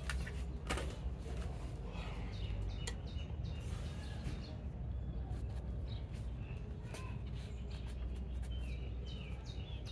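Small birds chirping on and off, short high chirps scattered through, over a steady low background rumble, with a few light clicks.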